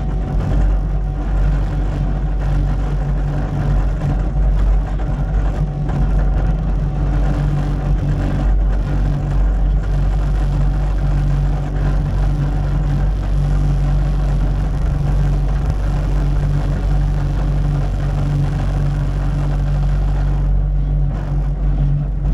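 Cat 289D3 compact track loader's diesel engine running steadily at working speed, a constant low drone.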